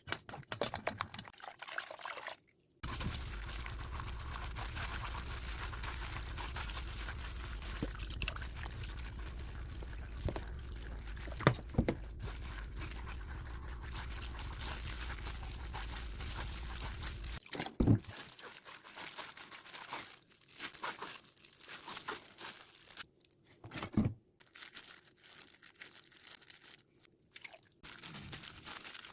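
Liquid poured steadily for about fifteen seconds, then stops, followed by a few knocks and scattered crinkling handling sounds.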